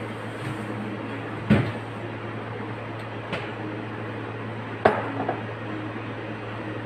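Sharp knocks and light clatter of a metal whipped-cream dispenser being handled and set down on a counter: two louder clunks, about a second and a half in and about five seconds in, over a steady low hum.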